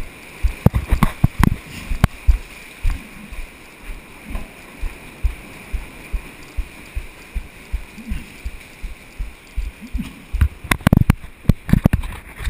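Sea water sloshing and gurgling inside a sea cave, with irregular dull thumps and knocks of water against the action camera, bunched about a second in and again near the end.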